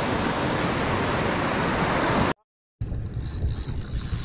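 Surf washing in over a sandy beach: a steady rushing noise that cuts off abruptly about two seconds in. After a brief silence a different, duller noise follows.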